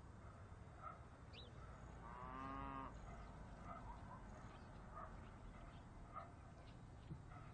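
A single short moo from cattle, about two seconds in and lasting under a second. Faint farmyard background with scattered small chirps.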